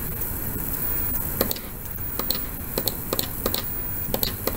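Computer mouse clicking, a series of short sharp clicks at an uneven pace, over a steady background hiss.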